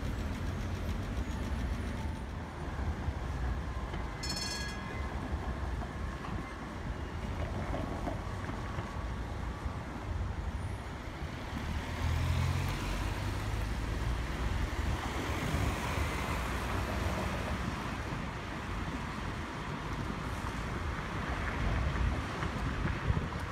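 City street traffic with Tatra trams rolling along the rails and cars passing, a steady low rumble throughout. A brief high ringing note sounds about four seconds in.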